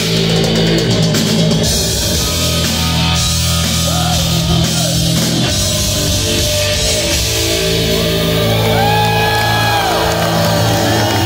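Live rock band playing loud: electric guitar, bass guitar and drum kit, heard from within the audience. A voice holds long notes over the band from about eight seconds in.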